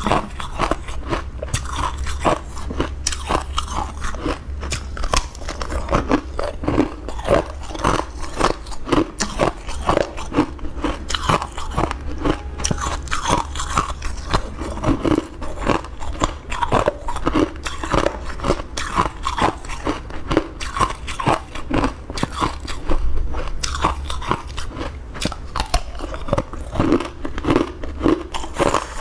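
Close-miked crunching of green ice cubes bitten off a frozen block and chewed: a fast, continuous run of sharp crackles and crunches.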